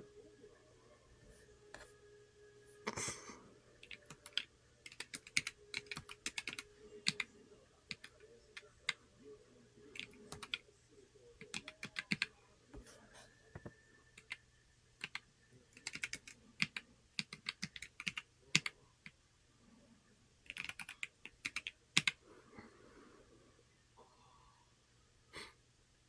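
Typing on a Corne split mechanical keyboard: bursts of quick keystroke clicks, each run lasting a second or two, broken by short pauses.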